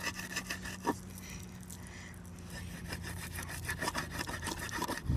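A long knife sawing back and forth through a carp's scaled skin and flesh against a wooden cutting board, a run of short scraping strokes. The strokes thin out about a second in and pick up again after about three seconds.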